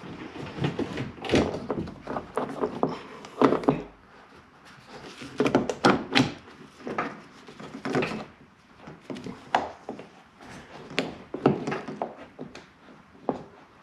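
Irregular clunks, knocks and rattles from inside a 2009 Nissan Versa's door as a replacement exterior door handle and its linkage rod are worked into place by hand. The clatter is densest in the first few seconds and eases off briefly around the four-second mark.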